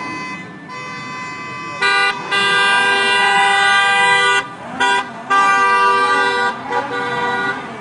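Car horns honking: a long loud blast about two seconds in, a short toot just before the fifth second, then another long blast, with a fainter horn tone sounding at the start.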